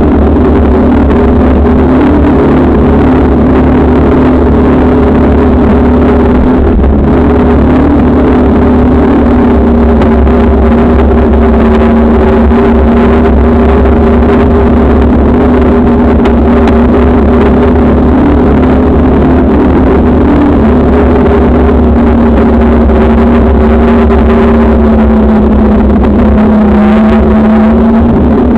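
Bicycle ride on an asphalt path heard through the camera's microphone: loud, steady wind and rolling noise with a steady droning hum throughout.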